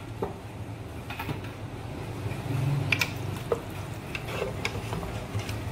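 Metal spatula clicking and scraping against the pressure cooker's metal wall as the mutton, onions and spices are stirred, the clicks coming closer together from about halfway in, over a steady low hum.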